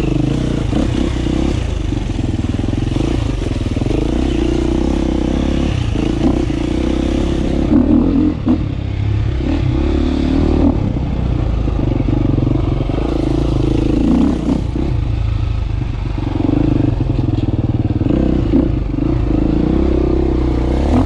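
KTM 350 dirt bike's four-stroke single-cylinder engine running steadily under the rider while riding a rutted trail, the engine note rising and falling every few seconds as the throttle is worked.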